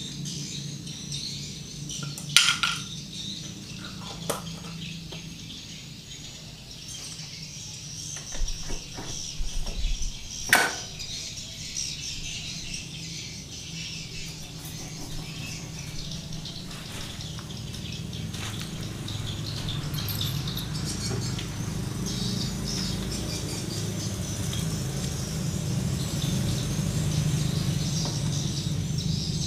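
Sharp metal clinks and knocks from a scooter's final-drive gearbox as gears and a shaft are fitted by hand into the open case. Clinks come about two and a half seconds in, again near four seconds, and in a cluster between eight and eleven seconds. Birds chirp throughout.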